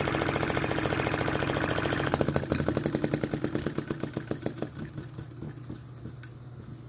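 Flame licker vacuum engine, built from an old RC model engine, running fast with rapid even puffing beats over the hiss of a butane torch lighter. About two seconds in the torch hiss stops and the engine's beats slow down and fade out as it coasts to a stop.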